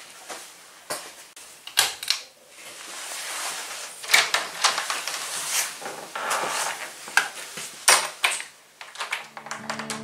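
Handling noise: rustling and clattering broken by irregular sharp knocks and clicks.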